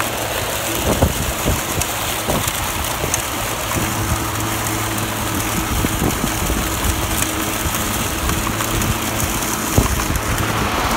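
Greenworks 60-volt battery self-propelled lawn mower running steadily as it mulches tall grass, its motor and blade giving a constant hum, with irregular low thuds.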